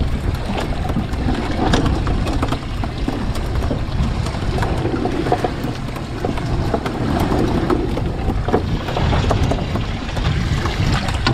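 Steady wind buffeting the microphone over the low rumble of a small boat rocking on a rough sea. Scattered light clicks and knocks come from bait fish being unhooked and handled on the deck.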